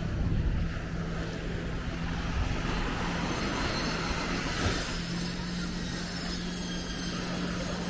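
A motor drones steadily with an even hum, over a low rumbling wash.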